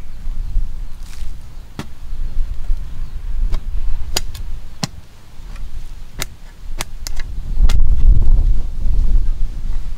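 A metal digging blade chopping into packed soil in several sharp strikes, about a second apart. Wind buffets the microphone with a low rumble that gets louder near the end.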